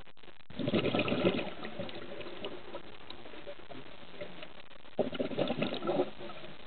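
A scuba diver's exhaled bubbles gurgling past the underwater camera, in two rushes about four seconds apart, over a steady faint hiss.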